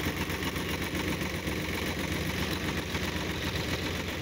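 Sonalika DI 750 tractor's diesel engine running steadily while its hydraulics raise the tipping trolley's bed.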